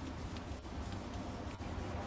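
Faint rubbing of a rag wiping boiled linseed oil over a wooden knife handle, a few soft strokes over a steady low hum.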